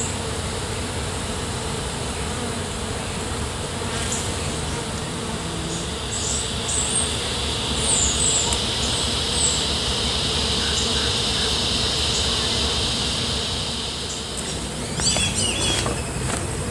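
A swarm of honey bees from an opened feral colony buzzing steadily in the air. A higher, steady drone swells through the middle.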